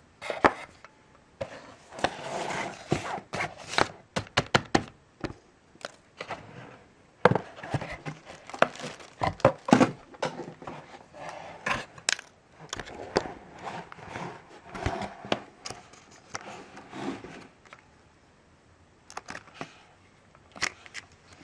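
Paper, plastic and cardboard packaging being handled, rustling and crinkling, with many sharp clicks and taps. It goes quieter briefly near the end.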